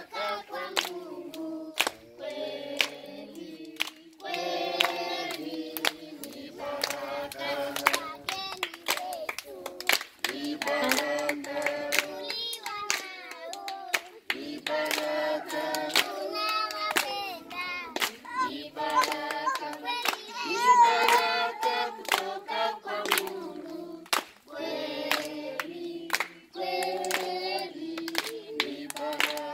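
A group of children and adults singing a song together in phrases, with steady hand clapping on the beat.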